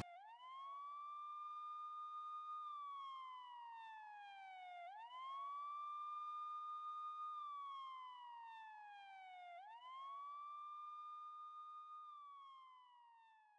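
Emergency-vehicle siren wailing. Each cycle rises quickly, holds a high tone for about two seconds, then slides slowly down, for about three cycles, and it fades near the end.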